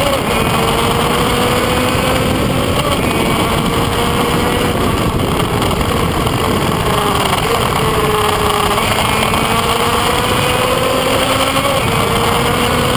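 Kreidler Van Veen two-stroke racing motorcycle at full throttle, its high engine note climbing slowly through each gear and dropping back a few times at the shifts, under heavy wind rush on the camera.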